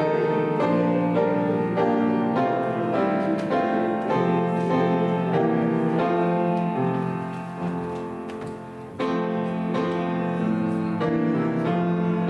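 Piano playing slow chords, each held for about a second, with a softer passage that fades about eight seconds in before a new, fuller chord enters.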